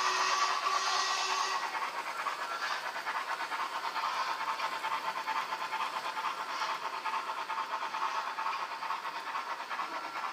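Hornby Duchess of Montrose model locomotive's digital sound decoder playing a steady, rhythmic steam chuff as the model runs round the loop, over the hiss of the running train. A held whistle-like tone fades out about a second and a half in.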